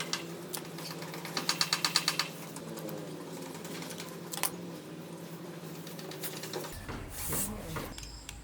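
A small motor whirring steadily, with a rapid run of clicks about a second and a half in. Near the end a low rumble with rushing noise sets in.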